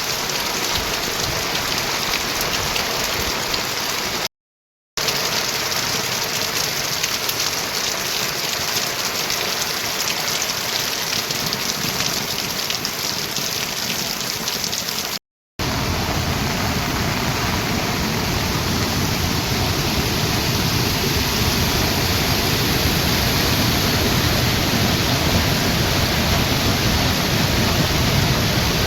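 Heavy monsoon rain falling steadily, a dense even hiss. It cuts out briefly twice, about four seconds in and about halfway through, and after the second break it comes back fuller, with more low rumble.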